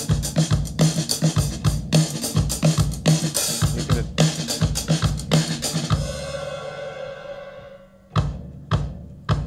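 A recorded drum-kit beat (kick, snare and cymbals) played back through an EMI TG12345 MK II mixing desk, compressed and with the desk's treble EQ boosted. The beat stops about six seconds in, leaving a ringing decay, and a few hits start again near the end.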